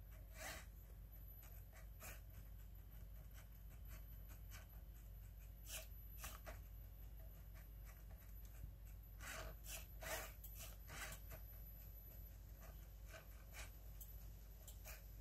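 LEGO Spike Prime pen plotter at work, faint: its pen scratching across the paper in short strokes and its motors and gears moving, a cluster of louder strokes about two-thirds of the way through, over a steady low hum.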